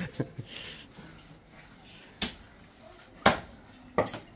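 A knife chopping Muscovy duck meat and bone: three sharp chops, the later two about a second apart.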